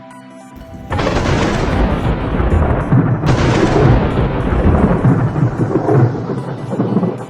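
Thunder: a sharp crack about a second in and a second crack a couple of seconds later, each followed by deep rolling rumble, which cuts off suddenly near the end.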